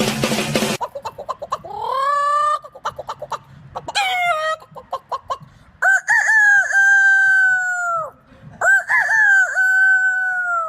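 Rooster clucking, giving a couple of short rising calls, then crowing twice, each crow a long held call of about two seconds.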